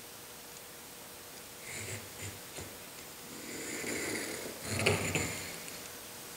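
Handling of tools on a sheet of plywood: a few light knocks about two seconds in, then a longer rasping rub with a louder knock near the end.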